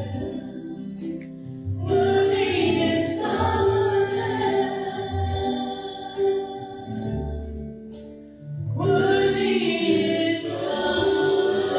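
Slow church worship music with held chords and a choir-like vocal sound, with a sharp hit about every second and a half. It dips briefly and swells again about nine seconds in.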